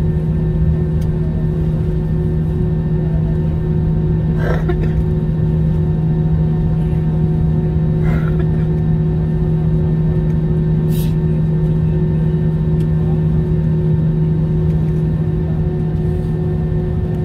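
Steady hum inside an airliner cabin after landing, with a strong low drone, plus a couple of faint short sounds about four and eight seconds in and a brief click near eleven seconds.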